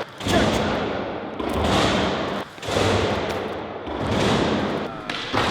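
Skateboard wheels rolling on a hard floor in several stretches of about a second each, each starting suddenly and fading off, with short breaks between them.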